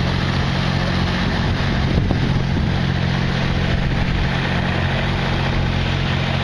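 An engine running steadily at a constant speed, a low, unchanging hum under general noise.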